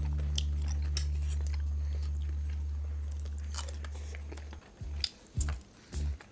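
Chewing and crunching of food, with scattered small clicks. A loud low steady drone underlies it and stops about four and a half seconds in, followed by a few short low thumps.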